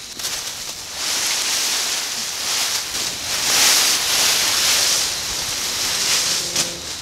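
Dry fallen leaves rustling and crunching as a body is dragged across the leaf-covered forest floor, a rough noise that swells and eases in waves.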